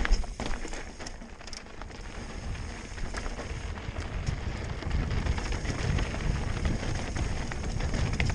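Mountain bike rolling over a rocky dirt trail, with wind rushing over the helmet chin-mounted camera's microphone and scattered clicks and rattles from the bike.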